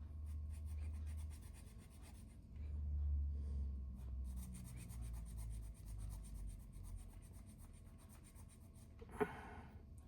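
A small hand file rasping on a plastic sign post in runs of quick, short strokes, shaving it down to fit its mounting hole. A single sharp click near the end.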